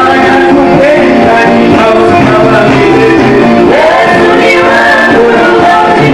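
Music with singing: voices over instrumental backing, loud and continuous, with sliding sung notes.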